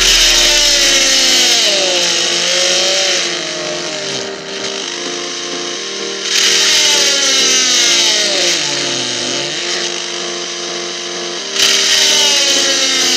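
A small homemade DC-motor drill running in three loud bursts of a few seconds each, its whine sliding in pitch between them. Background music plays underneath.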